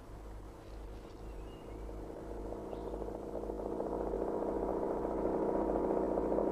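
A steady droning hum of several held tones over a low rumble, swelling louder through the second half. A few faint, short, high bird chirps sound in the first three seconds.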